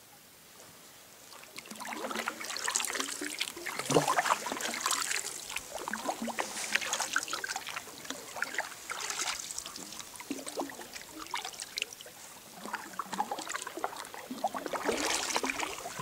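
Kayak paddle strokes: the blades dipping and splashing, with water trickling off them, about one stroke every two seconds, starting about two seconds in.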